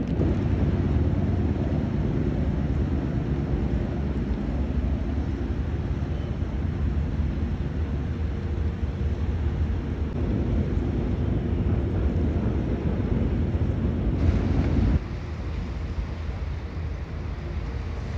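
A steady low engine hum with wind noise on the microphone, dropping abruptly to a quieter rumble about fifteen seconds in.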